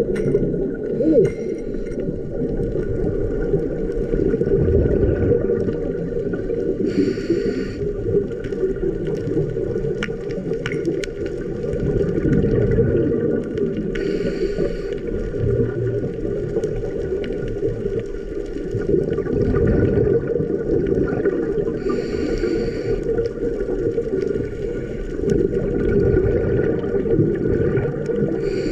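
Underwater ambience heard through a camera's housing: a steady low rumble, with a scuba diver's exhaled bubbles hissing out about every seven to eight seconds.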